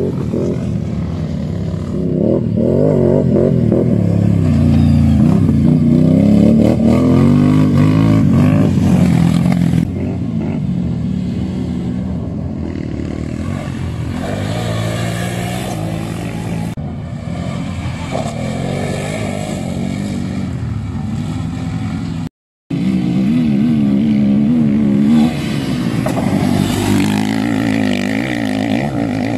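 Racing quad bike (ATV) engines revving hard, the pitch repeatedly rising and falling as the riders accelerate, back off and pass. The sound drops out briefly about two-thirds of the way through.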